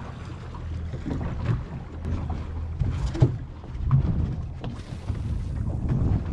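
Low steady rumble of a boat's idling outboard engines with wind on the microphone, broken by a few sharp knocks and clicks, the loudest a little past three seconds in.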